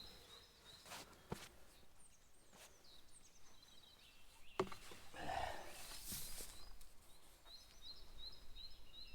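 Quiet outdoor ambience with faint, repeated high bird chirps. There are a couple of light knocks, and a rustling, handling noise about halfway through.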